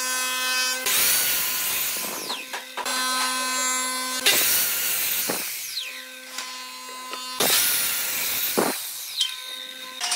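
Electric miter saw cutting through a wooden board three times. The motor whines steadily between cuts, and each cut is a loud rasp of about a second, followed by a falling whine as the blade winds down.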